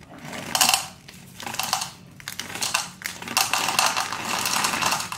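Chocolate chips pouring from their bag into a measuring cup, rattling in a few short spurts and then in one longer pour.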